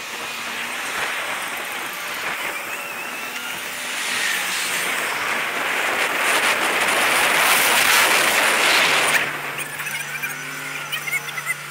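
Wind noise on the microphone and road traffic while cycling. The noise builds up and then drops off suddenly about nine seconds in, leaving a steady low hum.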